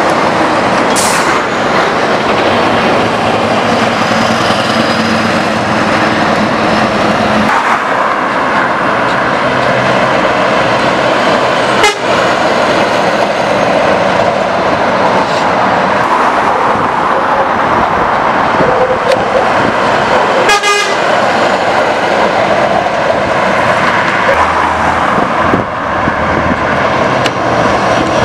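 Scania R500's V8 diesel through a straight-piped exhaust, a loud, steady note as the truck drives past, with a sharp click about twelve seconds in.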